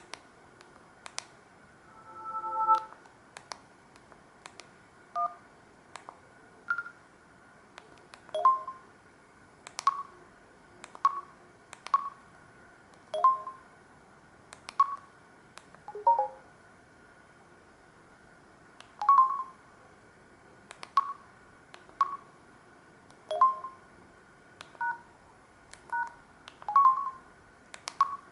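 Samsung SGH-D780 mobile phone keys pressed one after another, roughly once a second, each press a click with a short keypad beep that changes pitch from key to key.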